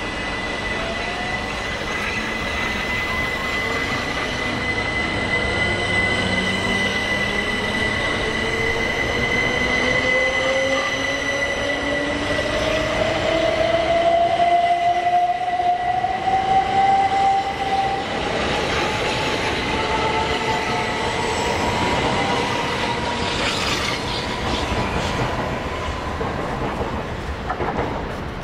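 Class 377 Electrostar electric multiple unit accelerating past, its traction motors whining in a pitch that rises steadily, with a steady high tone and the rumble of wheels on rail beneath. It grows loudest about halfway through and falls away near the end as the last coaches pass.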